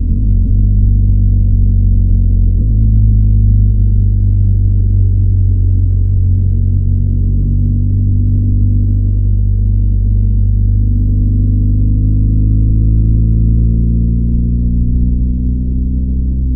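BMW R1250GS motorcycle's stock-exhaust boxer twin running under way. The engine note shifts near the start and again about three seconds in, then climbs slowly from about eleven seconds as the bike gathers speed.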